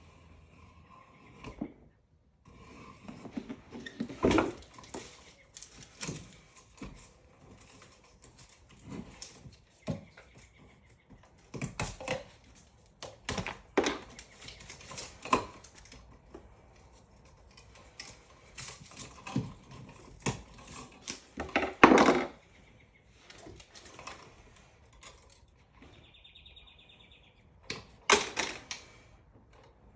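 Scattered knocks, taps and clicks of hand work on an outlet installation, irregular, with a brief high whir a few seconds before the end.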